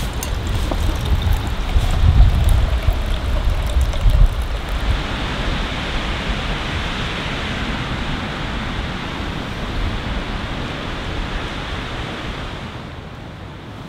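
Wind blowing through woodland trees, a steady rushing hiss. For the first four seconds or so it also buffets the microphone in low rumbling gusts.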